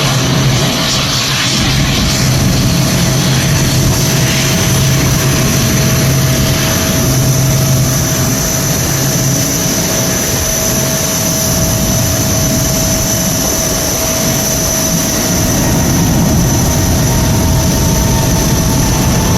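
Airplane engines running at takeoff power: a loud, steady rush of engine noise with a steady high whine and a low hum throughout.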